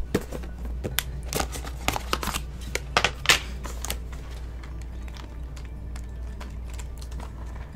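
Crinkling and crackling of a plastic takeout container and paper liner being handled, with dense sharp crackles over the first four seconds, then softer rustling as shredded cheese is tipped out and spread by hand.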